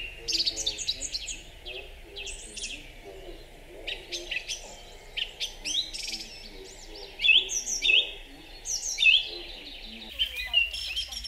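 Songbirds chirping and singing, many short, quick, sweeping high notes overlapping one another, over a fainter wavering lower layer. About ten seconds in, a steady background hiss rises underneath.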